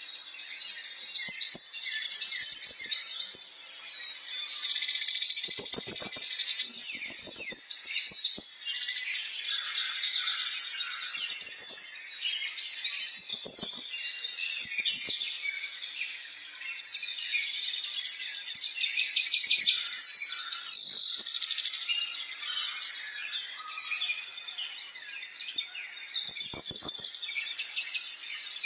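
Many small birds chirping and twittering at once in a dense, unbroken chorus of high, quick calls.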